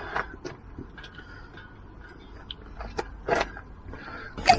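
Scattered clicks, knocks and rattles of an electric bike being handled and manoeuvred into a van's storage space, with a sharper knock near the end.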